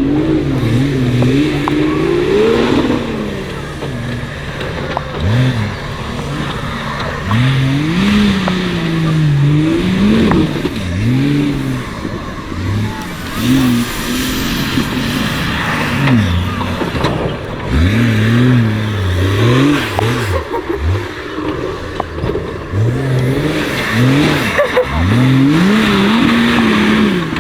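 A 4x4 off-road vehicle's engine revving up and falling back again and again, its pitch rising and dropping every second or two.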